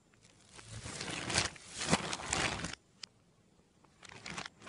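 Plastic bag full of dry corn flakes being handled and rustling, a long crinkling stretch over the first three seconds, a single click, then another short rustle near the end.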